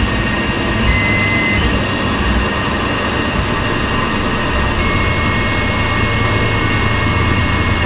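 Tormach CNC lathe peck-drilling the spinning workpiece under flood coolant: steady spindle and coolant-spray noise with a low hum. A high whine comes in briefly about a second in and again from about five seconds in.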